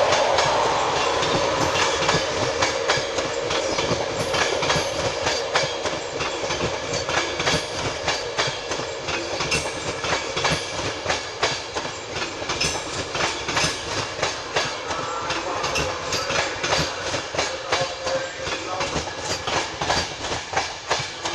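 An InterCity 225 train hauled by a Class 91 electric locomotive pulling into the station. It is loudest at first, with a steady tone that fades as the locomotive goes by. The Mark 4 coaches then roll past with a continuous run of wheel clicks over the rail joints.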